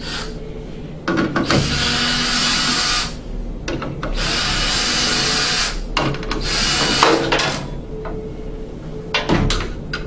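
Cordless drill-driver driving screws into the furnace's sheet-metal cabinet, in three runs of a second and a half to two seconds each. A few sharp clicks follow near the end.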